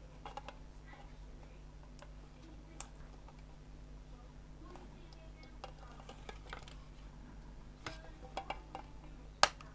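Scattered light clicks and taps of small parts being handled as an electronic gadget is worked on, with one sharp, louder click near the end, over a steady low electrical hum.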